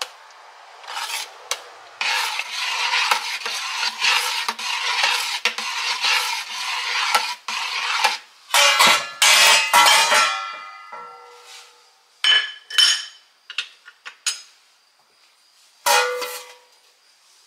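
Kitchenware being handled and knocked together. Several seconds of continuous rattling and clattering give way to a run of loud clinks that ring on, then a couple more ringing clinks and a single knock near the end.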